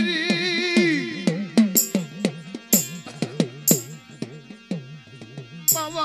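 Devotional folk music: a wavering melodic line trails off in the first second, then drum strokes and bright high crashes about once a second over a low wavering melody.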